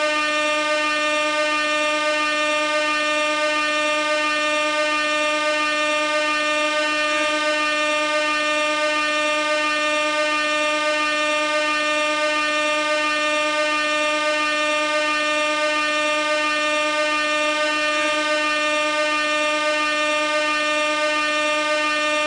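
Gas air horn blowing one continuous blast at a single steady pitch, without a break.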